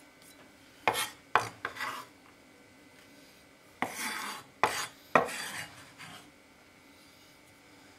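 Kitchen knife blade scraping chopped garlic across a wooden cutting board: a few short, sharp scrapes about a second in, then another group about four seconds in.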